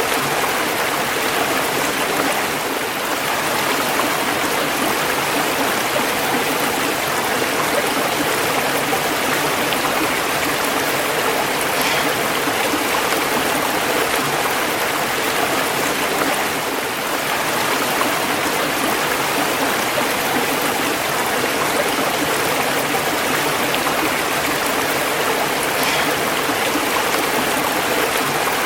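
Running water: a steady, even rush of flowing water.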